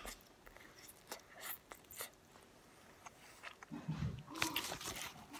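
Close-up chewing and mouth smacks of a child eating spaghetti, with scattered soft clicks and a brief low hum about four seconds in.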